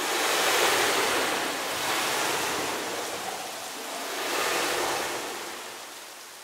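A rushing, wind-like noise that swells three times and then fades out near the end: a sound effect of debris blowing through a corridor.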